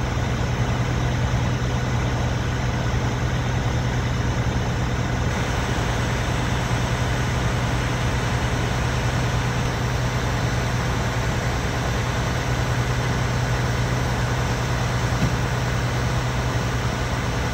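Heavy engine running at a steady speed, a constant low hum over a broad even hiss.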